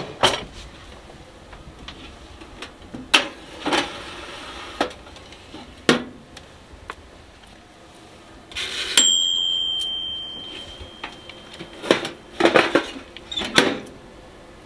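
Toaster oven's timer bell dings once about nine seconds in and rings out over a couple of seconds. Scattered knocks and clatter of pans and utensils being handled come before and after it.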